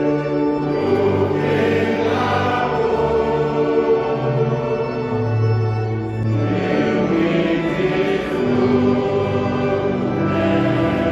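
A choir singing a slow church hymn in several parts, with held notes over a steady low accompaniment.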